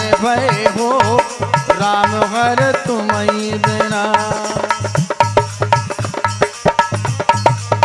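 Bundeli devi bhagat folk music: a man's wavering, ornamented singing over hand drums and hand claps. The voice settles on a long held note about three seconds in and fades out around five seconds, leaving the drums and claps playing on.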